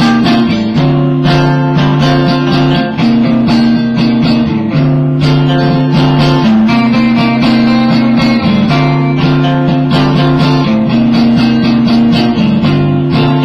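Electric guitars played live and loud, strumming a repeating riff that switches back and forth between two chords every couple of seconds.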